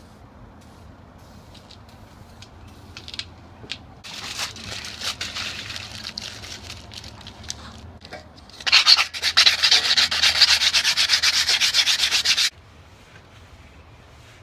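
Hand sanding on a bicycle part during restoration: a few light scrapes and clicks, then softer rubbing, then about four seconds of loud, fast back-and-forth strokes that stop suddenly.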